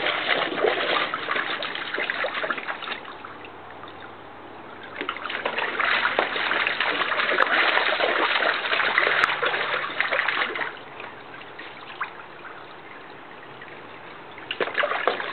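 Border collie splashing in a shallow plastic kiddie pool, pawing and stomping at the water in bursts. Splashing runs for a few seconds, eases off, picks up again about five seconds in, quietens around eleven seconds, and starts again near the end.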